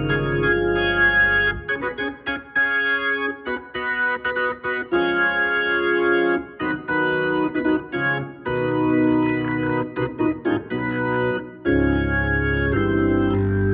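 Hammond B3 organ played through its Leslie 122 speaker cabinet: held chords over a strong low bass, then a long run of short, clipped chords with the bass dropped out, and about twelve seconds in the deep bass returns under held chords.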